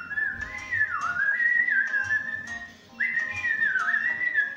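Someone whistling a wavering tune in two phrases, the pitch sliding up and down, with a short break about two and a half seconds in.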